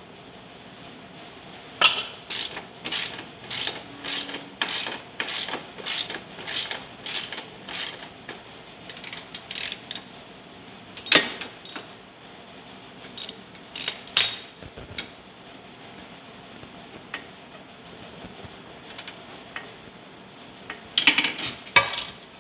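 Ratchet wrench clicking in steady strokes, about two a second for several seconds, then in shorter scattered runs, as it backs out the bolts of the motorcycle's stock exhaust mount. A few sharper metallic clicks come near the end.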